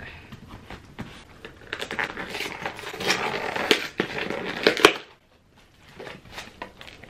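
Scissors cutting packing tape on a cardboard box, then the cardboard flaps pulled open with dense crinkling and tearing of cardboard and tissue paper, ending in a sharp snap. The sound cuts off abruptly about five seconds in, leaving only faint rustling.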